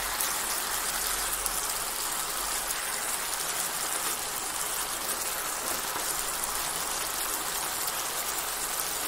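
Thick soy sauce glaze sizzling steadily in a pan around pieces of braised chicken, the cooking liquid boiled down almost to a paste.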